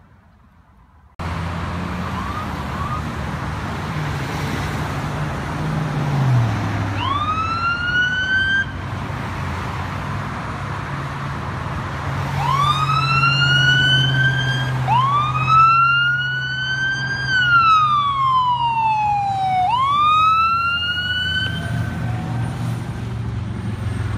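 Ambulance siren sounding over traffic and engine noise. It starts in short rising whoops several times, then holds a long rise, falls and rises again.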